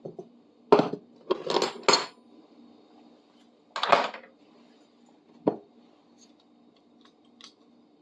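Metal hand tools clinking and clanking against each other and being set down: a quick cluster of sharp knocks in the first two seconds, then single clanks about four and five and a half seconds in, over a faint steady hum.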